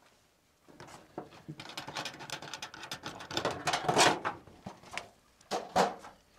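A camper's exterior storage hatch being opened, then gear rustling and clattering as it is rummaged through inside the compartment, with louder knocks about four seconds in and again near the end.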